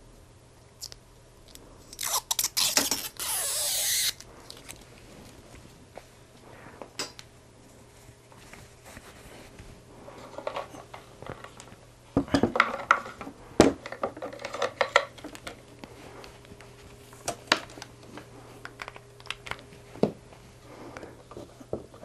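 Handling noises at a worktable: a loud scraping, crunching burst about two seconds in that lasts about two seconds, then scattered clicks and knocks, with a cluster of clatter from about twelve seconds in as the homemade spot welder built from a microwave oven transformer is moved about on the table.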